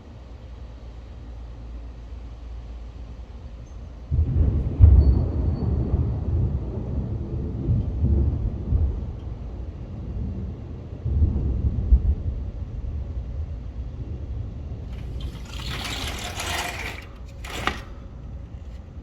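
Thunder rumbling: a sudden low rumble about four seconds in that rolls on with swells for several seconds and dies away. Near the end a brief hissing rush, then a shorter one.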